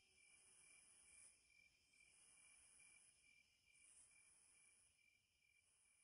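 Near silence, with faint insect chirring: a high chirp repeating a few times a second over a low hiss.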